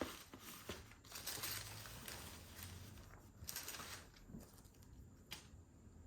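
Paper packaging rustling and crinkling as it is handled, in several bursts, with a sharp click about five seconds in.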